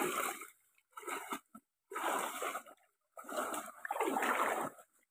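Floodwater sloshing and splashing in about five short, irregular bursts, as a person wades through it.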